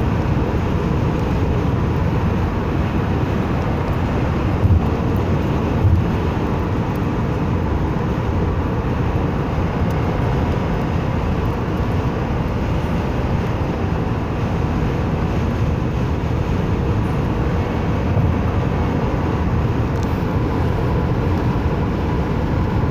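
Steady road and engine noise heard inside a car cruising at highway speed, mostly a low rumble. Two brief thumps about five and six seconds in.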